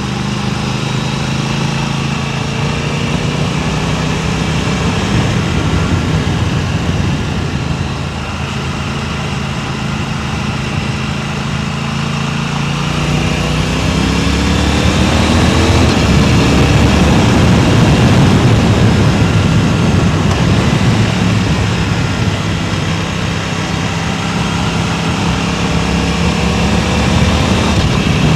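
Vehicle engine running under way, with wind rushing over the microphone. About halfway through, the engine note rises as it accelerates, and the rushing noise grows louder, then the engine settles back to a steady pitch.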